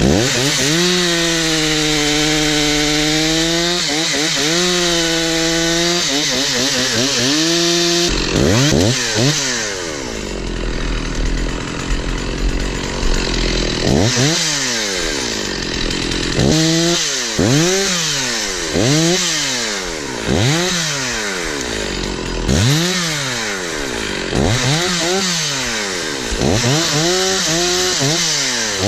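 Two-stroke Stihl 046 chainsaw held at full throttle for about eight seconds, dipping briefly twice. After that it is revved up and let back down over and over, about once every second or two.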